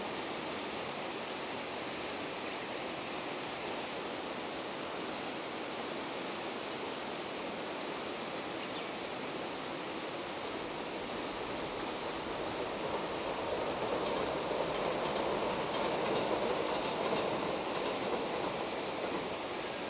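Steady rush of fast, churning river rapids. About twelve seconds in, the sound of a train crossing a railway bridge swells over it, then fades near the end.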